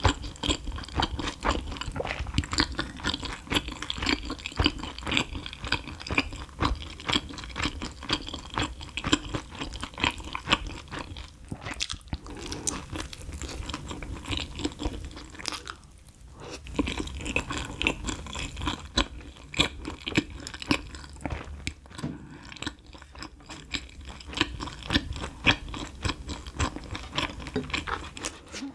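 A person chewing and crunching mouthfuls of pizza crust close to the microphone: a dense run of crisp crunches and wet chews, with short pauses twice near the middle.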